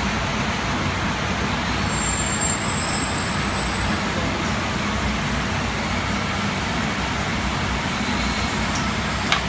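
Steady industrial machinery noise with a low hum, and one short click near the end.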